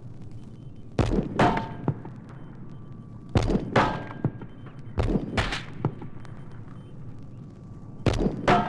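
Gunfire: four pairs of sharp shots, the two shots in each pair close together, each shot trailing off in an echo.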